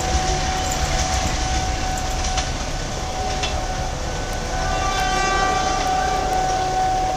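Argo Bromo Anggrek passenger train receding down the line, its rumble and wheel noise on the rails easing off. A train horn sounds in the distance from about four and a half seconds in and holds for a couple of seconds.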